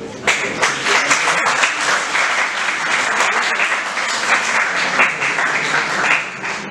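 An audience applauding: a crowd's clapping starts suddenly just after the start and keeps up steadily.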